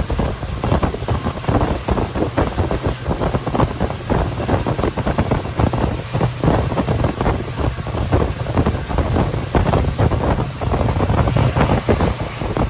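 Passenger train running at speed, heard from aboard a coach: steady rumble and clatter of wheels on the rails with wind rushing over the microphone.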